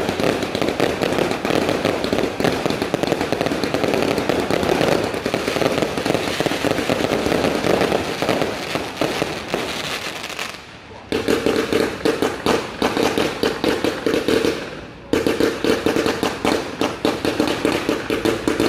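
Multi-shot fireworks firing rapid, dense volleys of launches and bursts with crackle. The sound drops away briefly twice, around ten and fifteen seconds in.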